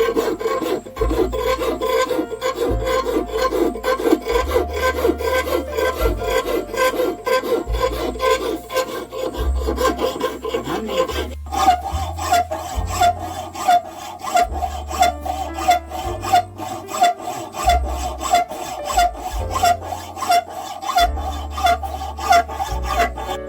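Hand filing: steady, rhythmic rasping strokes, about two a second. About halfway through, the scrape jumps to a higher, brighter pitch.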